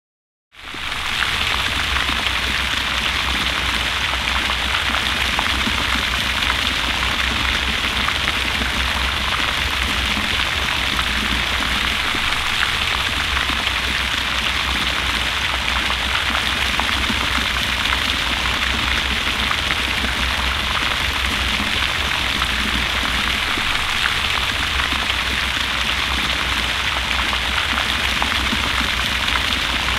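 Airmax PondSeries 2 HP floating fountain running, its double-arch spray splashing back onto the pond surface in a steady rain-like hiss, with a low steady rumble underneath. It comes in just after the start and holds at an even level.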